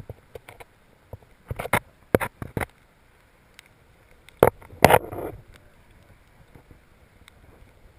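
Water splashing and knocking against a camera held under water in a shallow stony river as a trout is released by hand: a few clusters of sharp splashes, loudest about halfway through.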